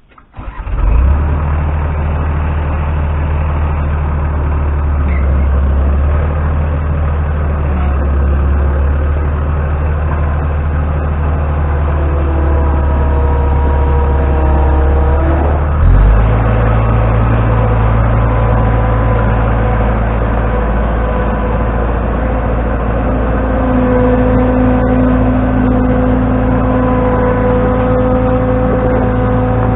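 The engine of the machine carrying the lumber on its forks starts up less than a second in and runs steadily. About 16 seconds in its note changes suddenly, and a thin whine sits above the engine sound throughout.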